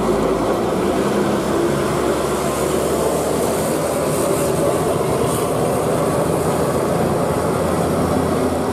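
Large coach's diesel engine pulling uphill under load as the bus passes close by and climbs away, a steady loud drone.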